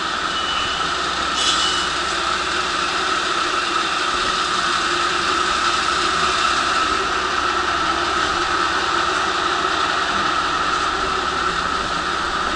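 JR Shikoku 1500 series diesel railcar idling at the platform, a steady even hum, with a short click about a second and a half in.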